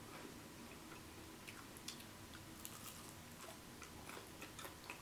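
Faint, scattered crunchy clicks of someone chewing spicy Korean fried chicken.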